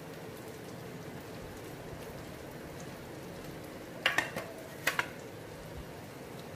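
Steady hiss of background noise, with a couple of short sharp clicks about four and five seconds in.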